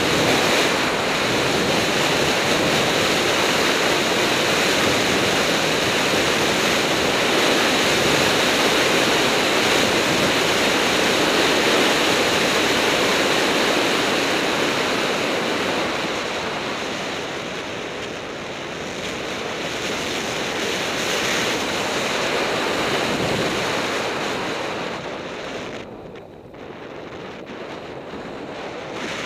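Wind rushing over the microphone of a bicycle's camera during a fast downhill descent: a steady, loud rushing noise. It drops briefly near the end.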